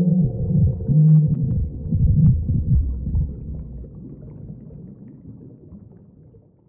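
Deep, wavering low drone and rumble of an eerie ambient soundtrack, fading out over the last few seconds.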